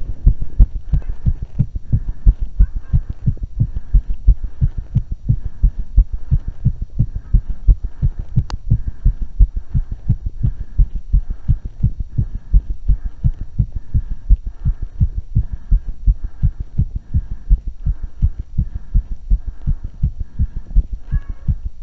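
A woman's heartbeat shortly after running: low thumps in a quick, steady rhythm, the heart rate raised by the exercise. A single sharp click about eight seconds in.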